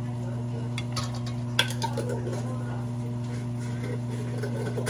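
A kitchen utensil clinking against cookware a few times, the sharpest clink about a second and a half in, over a steady low hum.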